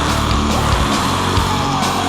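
Black metal music: heavily distorted guitars and drums, with a drawn-out tone sliding slowly down in pitch.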